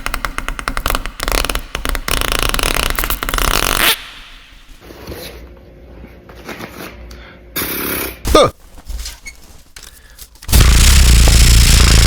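Beatboxed mouth sound effects: a rapid buzzing rattle for about four seconds, a quieter stretch with a short burst and a sliding squeak, then a loud, deep blast near the end.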